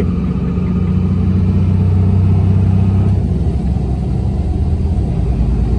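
5.9-litre 24-valve Cummins inline-six turbo diesel pulling a manual Dodge Ram 2500 down the road, heard from inside the cab as a steady low drone. The drone eases about three seconds in.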